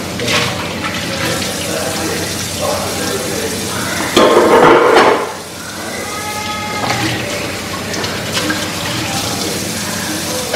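Kitchen tap running water into a large jar as it is washed out by hand. The water gets louder for about a second near the middle, and a short ringing tone follows from the jar.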